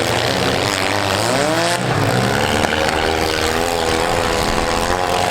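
Several compact-car engines running at once, revving up and down.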